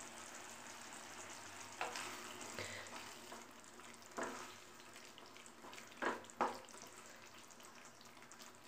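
Onion gojju, chopped onions cooked down in oil with tamarind and chilli powder, sizzling faintly in a nonstick pan while it is stirred with a wooden spatula. A few short scrapes of the spatula against the pan come through, around two, four and six seconds in.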